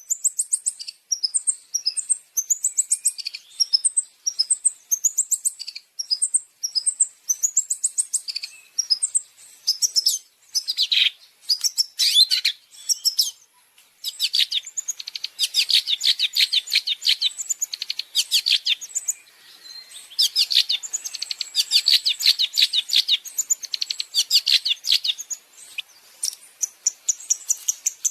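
Long-tailed shrike (cendet) singing a fast, chattering song: bursts of high chirps, then long runs of rapidly repeated notes with a brief break about two thirds of the way in.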